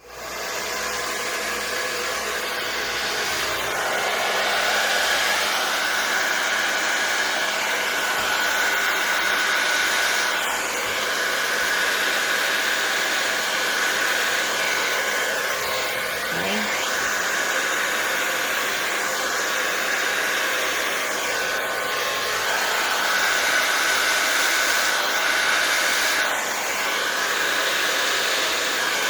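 Hair dryer with a nozzle attachment, on its cool, low setting, switched on at the start and then running steadily, a constant rush of air with a thin steady whine, blowing out a puddle of acrylic paint.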